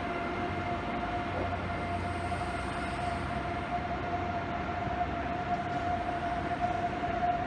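Electric passenger train moving slowly out along the platform, a steady whine from its running gear over a rumble that echoes in the covered station hall, growing louder near the end.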